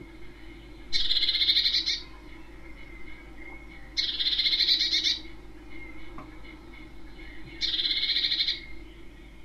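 Small songbird singing: a short, fast-trilled phrase about a second long, given three times about three seconds apart.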